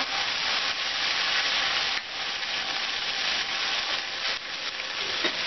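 Hot oil sizzling steadily as ginger-garlic paste and slit green chilies fry in a wok, stirred with a plastic slotted spatula.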